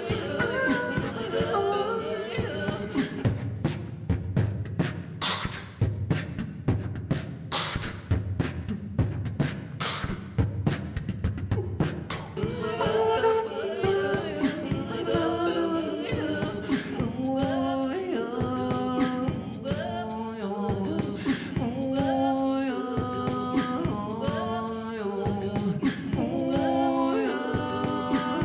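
Live beatboxing: percussive mouth beats. About halfway through, several sung vocal parts come in together over the beat, layered as on a loop station.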